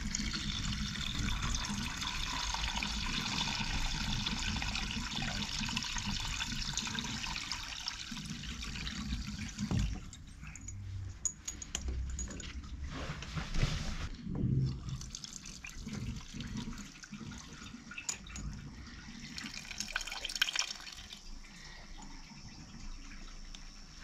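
Water pouring from a boiler's braided flexible hose into a plastic drain tray as the boiler is drained down, the flow easing off and stopping around eight to ten seconds in. After that come scattered knocks and splashes as the tray is handled.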